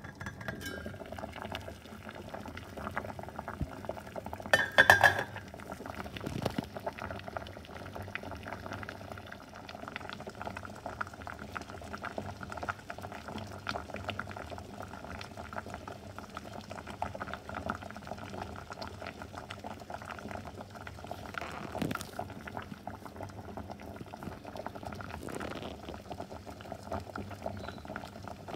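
Water with beetroot chunks boiling hard in a stainless steel pot: a steady bubbling. A brief loud clink about five seconds in, with a smaller one later.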